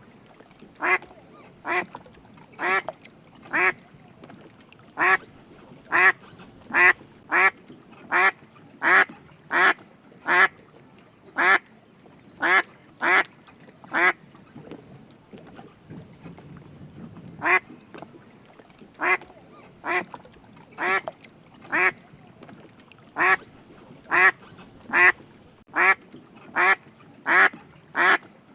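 A duck quacking over and over in short single quacks, roughly one or two a second, with a break of a few seconds about halfway through before the quacking resumes.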